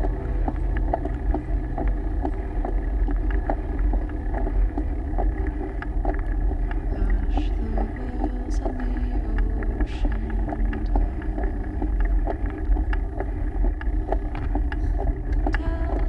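Steady low rumble of wind and road vibration on a moving bicycle's camera, with frequent small ticks and rattles from the bike over the rough road surface.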